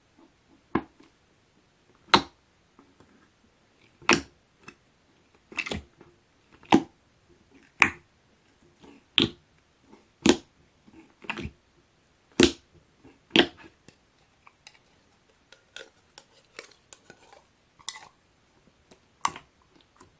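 Hand-played slime making sharp pops and clicks about once a second, with fainter crackles in between.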